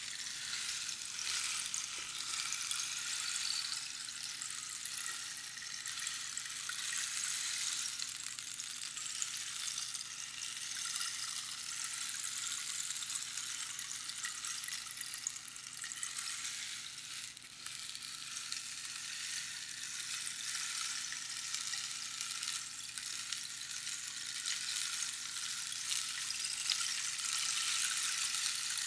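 Rainstick sounding: a dense, continuous patter of pebbles trickling past the inner pins, swelling and easing in long waves like falling rain.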